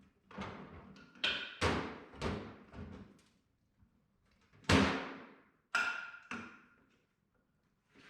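Metal clanks and knocks, about eight of them with a short ring after each and the loudest a little under five seconds in, as tools work a pin out of an IH 140 touch control arm.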